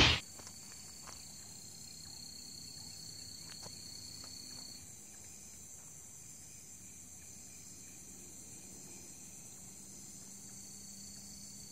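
Crickets and other night insects chirring steadily in high-pitched bands, with one steady trill that stops about five seconds in. A brief loud swish at the very start as a fishing rod is cast.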